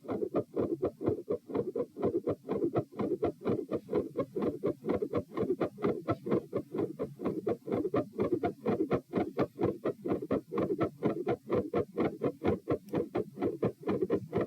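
Fast human heartbeat heard at the pulmonic area, a rapid, even train of beats with a squeaky quality. The uploader hears split heart sounds, a midsystolic click and some murmur at the first heart sound.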